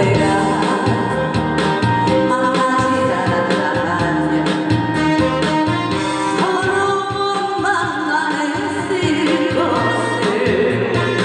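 A woman singing a Korean song live into a microphone over an instrumental backing track, her held notes sung with vibrato.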